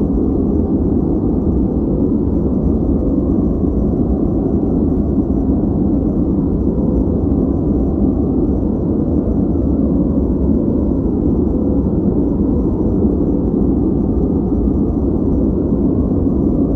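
Steady synthetic noise played as a focus background. It is deep and even, with most of its energy in the low and middle range and little treble, and it does not change.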